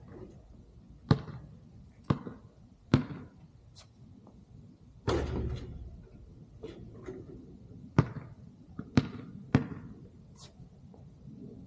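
Basketball bouncing on an outdoor court in sharp, separate thuds, three in the first three seconds and three more near the end. About five seconds in comes a louder, longer hit with a low rumble, like the ball striking the backboard or rim.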